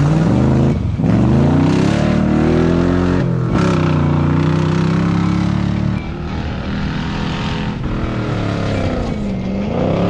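Off-road race car engines revving hard through a corner. The pitch climbs and drops with the throttle and breaks off briefly twice in the first few seconds, like gear changes or lifts. About halfway through, a second engine takes over; its pitch dips and climbs again near the end.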